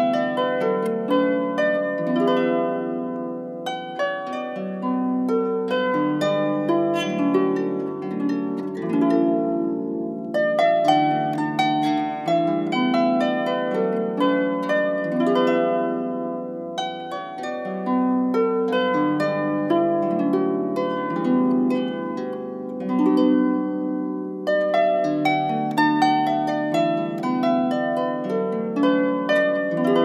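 Background music on a plucked string instrument, harp-like: a melody of notes that each ring and fade, played in phrases with short pauses between them.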